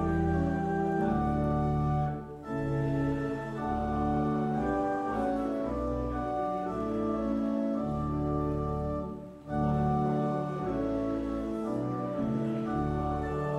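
Church organ playing a slow hymn in held chords over a pedal bass, with short breaks between phrases about two seconds in and again about nine seconds in.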